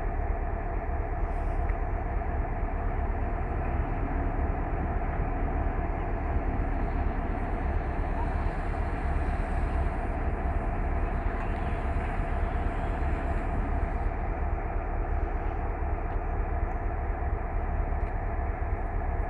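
EMD G26 diesel-electric locomotive standing close by with its engine idling: a steady, deep running sound with a constant hum, unchanging throughout.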